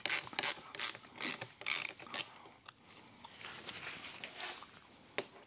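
3/8-inch ratchet with an Allen socket clicking in quick back-and-forth strokes, about two or three a second, as it turns out the drain plug on a ZF 6HP26 automatic transmission. The clicking stops about two seconds in, leaving faint rubbing and a single click near the end.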